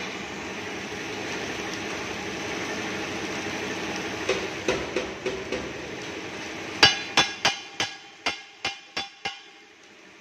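LPG cylinder circumferential seam welding machine running with a steady mechanical noise as it turns the cylinder, with a few knocks. In the second half comes a run of about eight sharp metallic strikes, roughly three a second, after which the machine noise falls away near the end.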